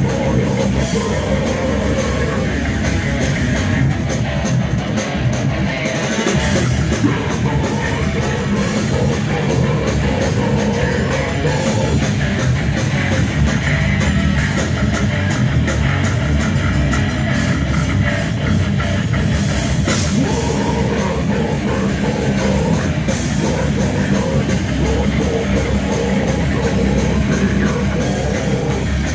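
A heavy metal band playing live: loud distorted electric guitars and bass over a pounding drum kit, without a break.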